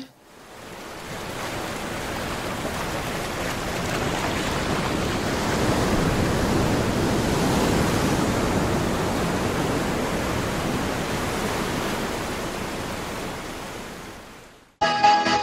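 An even rushing noise, like surf, swelling in over the first couple of seconds, holding, then fading away. Music cuts in suddenly near the end.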